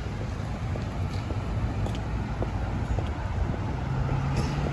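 City street traffic noise with wind buffeting the microphone: a steady low rumble, with a vehicle engine hum coming up a little louder near the end.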